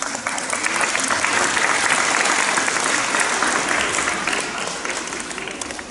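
Audience applauding, swelling over the first couple of seconds and tapering off toward the end.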